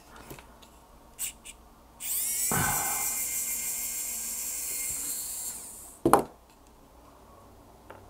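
Electric precision screwdriver running for about four seconds as it backs a screw out of the drone's frame, its pitch dropping briefly as it takes the load, then a short knock.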